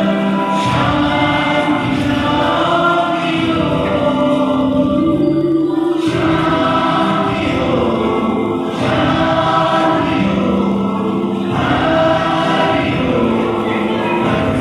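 Music with a group of voices singing together in long held notes, phrased every few seconds.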